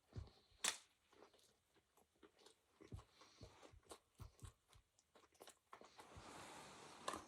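Faint close-up chewing and biting of a crispy chicken burger: scattered crunches and mouth clicks, the sharpest about a second in. A soft hiss comes in near the end.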